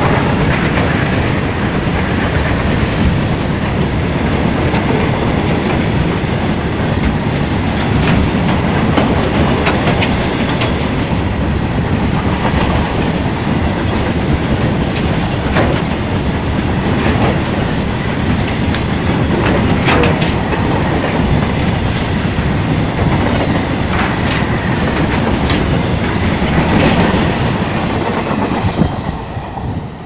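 Freight train wagons rolling past at speed: a steady rumble and rattle with the wheels clacking over rail joints, dying away near the end as the last vehicle passes.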